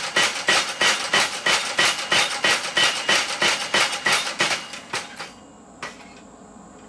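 A homemade belt-driven power hammer striking a hot railroad spike, drawing it out. It lands a steady run of ringing metal blows, about three to four a second, which stop about five seconds in. One last single knock follows about a second later.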